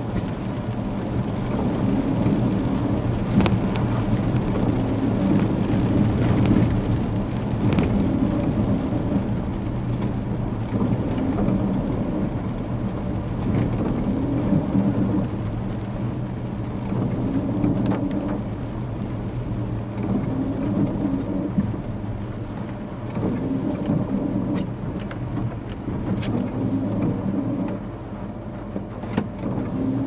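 A truck's engine running and road noise heard from inside the cab while driving in the rain. The engine note swells and eases every few seconds, with scattered sharp taps, and it settles lower near the end as the truck slows.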